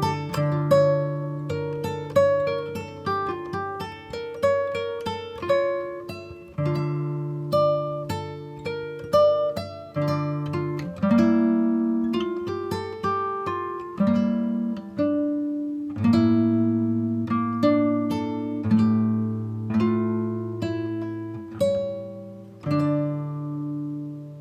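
Background music: plucked acoustic guitar playing a melody over held bass notes.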